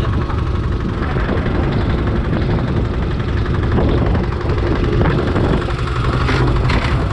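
Boat engine running steadily, a low drone with a fine regular beat over it.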